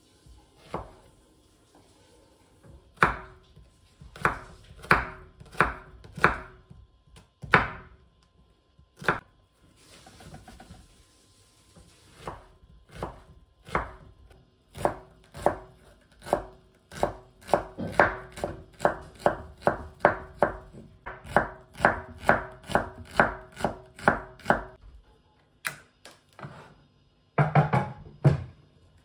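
Kitchen knife chopping on a cutting board: scattered single cuts at first, then steady chopping at about two to three strokes a second, and a brief louder clatter near the end.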